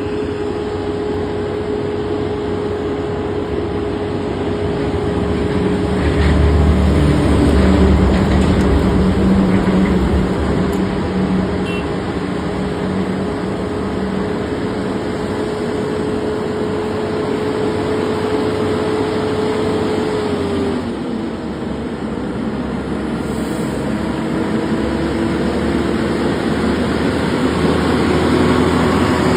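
Volvo FH16 700 truck's 16-litre straight-six diesel running, a steady pitched drone over a rushing noise. It swells louder for a few seconds about a quarter of the way in. About two-thirds through its pitch drops suddenly, then climbs slowly again.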